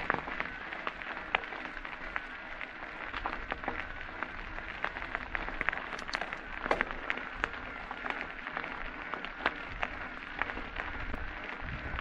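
Mountain bike ridden over rough trail: a steady rush of tyre noise on the ground with many irregular clicks and rattles from the bike, and a low wind rumble on the microphone.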